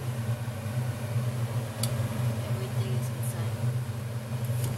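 Steady low hum from a kitchen appliance, with a few faint clicks.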